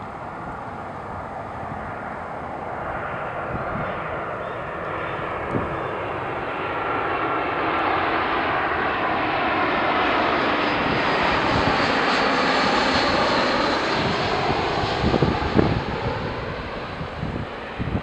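Jet engine noise of an Airbus A321-231 on final approach, its IAE V2500 turbofans growing steadily louder to a peak about two-thirds of the way through, then starting to fade. A few short low thumps come near the end.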